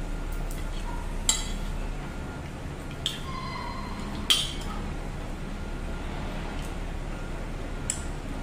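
Metal spoon and fork clinking against a ceramic plate while eating: four sharp clinks with a short ring, spread over several seconds, over a steady low hum.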